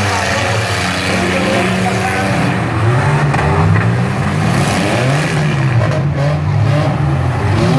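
Several demolition derby cars' engines revving up and falling back over and over as they drive and push against each other.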